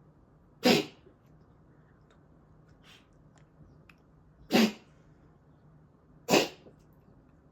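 A pet sneezing three times: short, sharp bursts, the first about a second in, the next two close together near the end.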